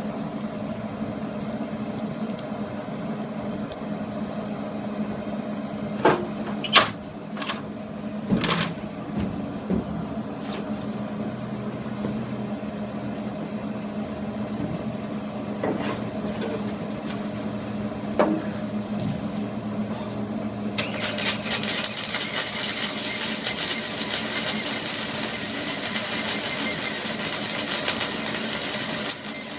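A steady machine hum with several sharp clicks and knocks. About two-thirds of the way through, a loud steady hiss starts and keeps going.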